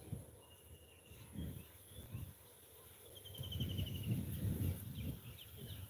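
Insects chirring: a high, steady thin drone with a rapid pulsing trill a little after three seconds in. Irregular low rumbling comes and goes underneath.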